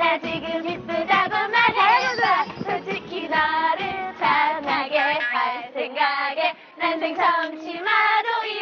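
Several young women singing a bouncy tune together in high voices.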